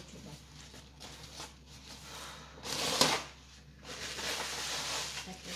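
A thin white bag rustling and crinkling as it is handled, with a loud crackle about three seconds in and steadier crinkling after it.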